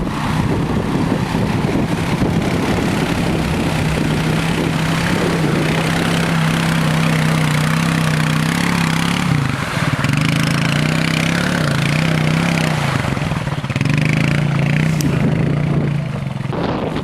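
ATV (quad) engine running at fairly steady revs while the quad is ridden through mud, its pitch sagging and recovering a few times around the middle.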